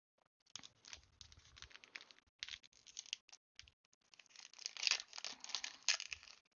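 Digimon trading-card booster pack wrapper being crinkled and torn open by hand, an irregular run of crackles and rustles, loudest near the end.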